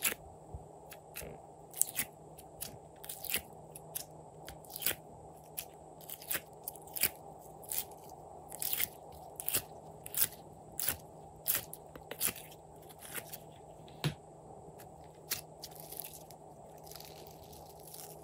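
Hands squeezing and kneading soft pink slime, making a string of sharp crackling clicks and pops, about one or two a second, over a steady low background hum.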